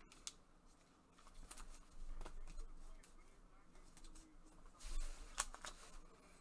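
Faint desk-handling noises: a few scattered light clicks and a couple of short rustles, with one sharper click about five seconds in.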